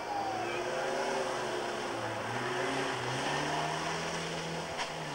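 A rally car's engine working hard on a stage: the engine note rises in steps and dips as the throttle and gears change through a bend. There is a short sharp crack near the end.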